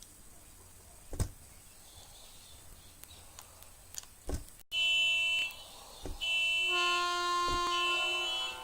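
Harsh electronic buzzer- and horn-like tones from a noise-maker app, played through a tablet's small speaker. A few short knocks come first; a buzzing tone starts about halfway in, and near the end several tones play on top of each other.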